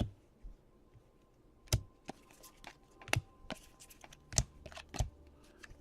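Trading cards being flipped through by hand: a sharp card-on-card snap about once a second, with lighter flicks and slides between.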